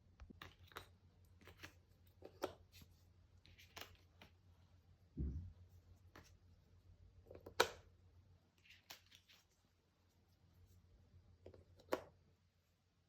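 Cardboard jigsaw puzzle pieces being handled: scattered soft clicks and short scrapes, with a low thud about five seconds in and a sharper click a little past halfway.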